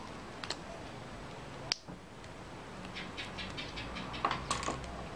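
Quiet handling noise of cables and packaging: a single sharp click about two seconds in, then a run of small clicks and rustles as hands rummage in a cardboard box.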